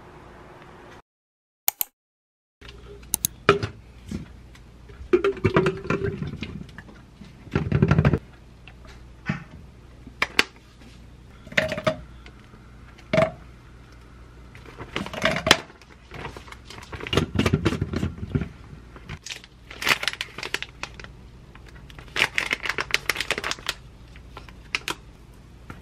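Kitchen prep sounds around a plastic blender bottle: frozen blueberries dropping in, the bag rustling, and containers and lids knocking and clicking on the counter, in separate short bursts after a brief silent gap near the start.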